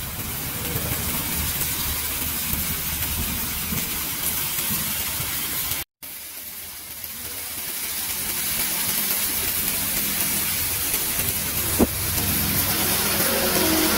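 Mashed eggplant sizzling in a hot steel wok, a steady frying hiss that breaks off for an instant midway and comes back quieter, building up again. A single sharp click near the end.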